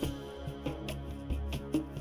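Background music with a steady rhythmic beat over a low bass line.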